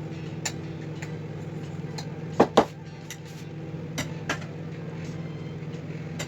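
A steady mechanical hum runs under scattered light clicks and taps. Two sharp knocks come close together about two and a half seconds in and are the loudest thing heard.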